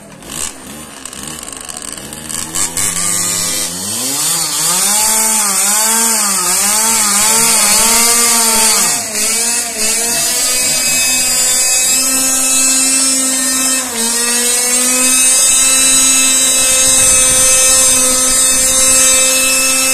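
Pocket bike's small two-stroke engine revved in a quick series of blips, then held at a steady high, buzzing rev that rises a little about two-thirds of the way through.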